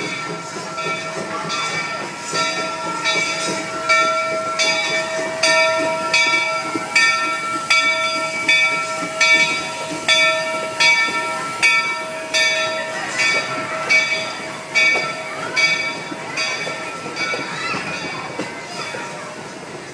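Locomotive bell on Rio Grande Southern No. 41, a 2-8-0 narrow-gauge steam engine, ringing steadily at about one and a half strikes a second as the train rolls over a crossing, with steam hissing. The strikes fade out near the end as the coaches pass.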